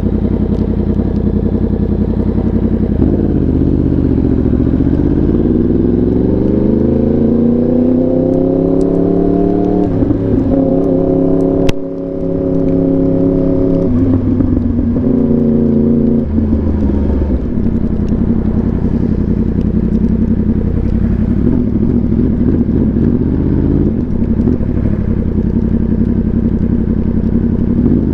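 Yamaha R1 inline-four engine through an SC Project exhaust while riding. The engine's pitch climbs steadily for several seconds as the bike accelerates. About halfway through there is a single sharp crack, after which the engine runs at a steadier pitch.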